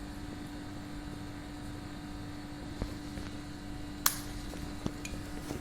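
Steady mechanical hum, like a fan or appliance, with a few small clicks and one sharp clink about four seconds in.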